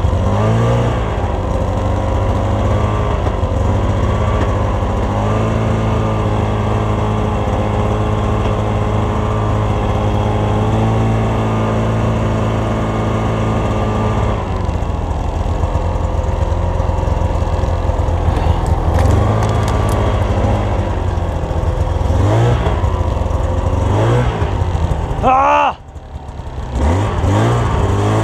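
Snowmobile engine running under load while pushing through deep powder, holding a steady pitch at first. Near the end it revs in surges and briefly drops off, as the machine bogs down and gets stuck in the snow.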